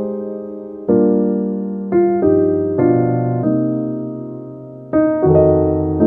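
Slow, calm piano music: a few chords and notes struck with pauses between them, each left to ring and fade out.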